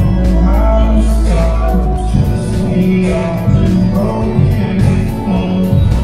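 Background music: a song with a singing voice over bass and a regular beat.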